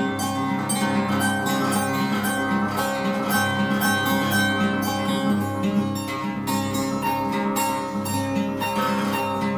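Acoustic guitar played in a rapid, steady stream of picked and strummed notes ringing over one another.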